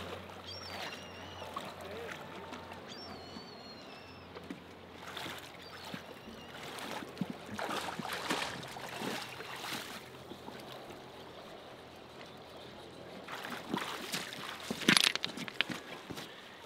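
Water sloshing and splashing around an angler's waders as he wades through river shallows, playing a hooked sockeye salmon. A brief, loud burst of noise comes near the end.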